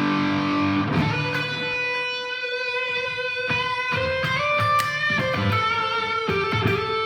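Electric guitar playing slow, long-sustained single notes, several of them bent or slid up to a new pitch.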